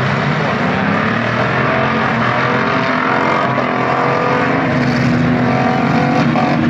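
A pack of old trucks, vans and SUVs racing in reverse, many engines running hard at once with revs rising and falling.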